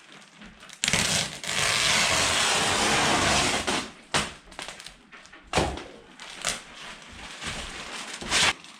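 Wrap over a rough window opening being cut and torn away: a loud tearing rasp that starts suddenly about a second in and lasts about three seconds, followed by a few separate sharp knocks.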